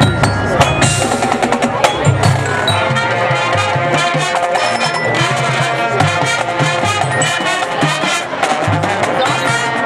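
High school marching band playing, with quick mallet strikes on a pit keyboard percussion instrument over sustained low brass notes.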